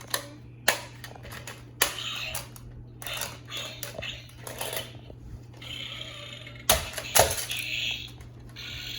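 Hard plastic toy parts clicking and clacking, with stretches of rustling between: a Smashers toy ball being handled and cracked open. The two loudest clacks come close together about two-thirds of the way through.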